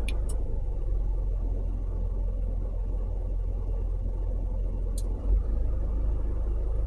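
Steady low background rumble, with a few faint clicks and a short low thump about five seconds in.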